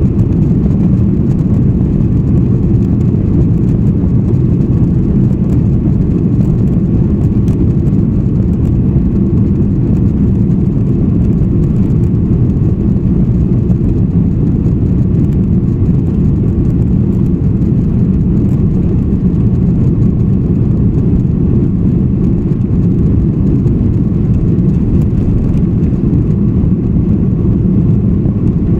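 Airbus A330-300 taxiing, heard inside the cabin: a steady low rumble of the engines at taxi power and the airframe rolling, with a faint steady whine above it. The level does not rise, so no takeoff spool-up is heard.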